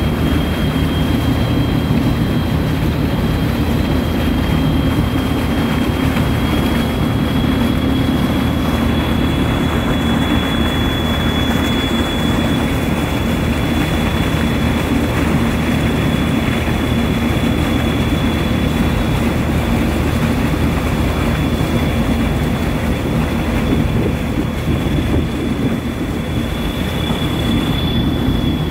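High-speed catamaran ferry under way: a steady drone of its engines mixed with the rush of churning wake water, and a thin high whine over it.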